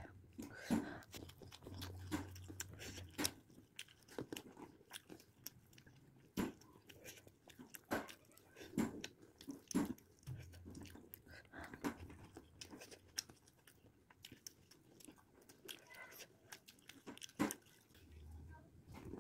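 A meal of rice eaten by hand: fingers squishing and mixing cooked rice on a plastic plate, with chewing, heard as faint, irregular clicks and smacks.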